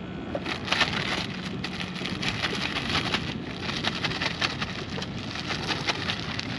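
Plastic zip-top bag crinkling and rustling as fish fillets are shaken inside it with seasoning and olive oil: an irregular crackle that starts about a second in.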